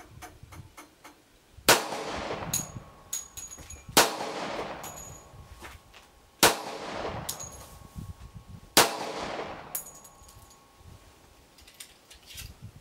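Four shots from an M1911 pistol in .45 ACP, about two and a half seconds apart, each followed by a ringing tail, with faint clicks between them.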